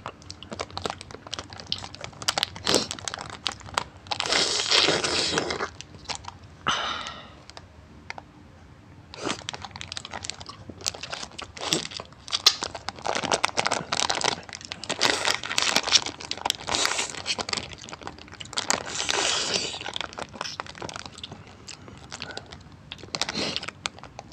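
Candy wrapper crinkling and crackling as it is handled close to the microphone, in irregular spells with short quiet gaps between.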